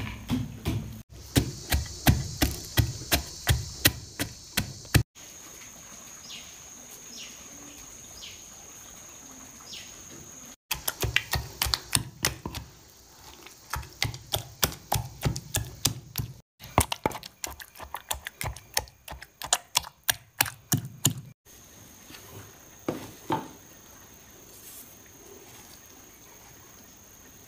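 Wooden pestle pounding spices in a heavy mortar: rapid, regular thuds, about three a second, in several bursts with quieter pauses between. Near the end there are only a few light scrapes and knocks as the ground spice is worked out of the mortar.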